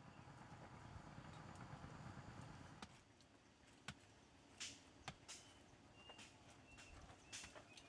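Small pickaxe biting into and scraping compact earth: a few dull, irregular strikes from about three seconds in, all faint. Before that there is only a low, muffled rustle.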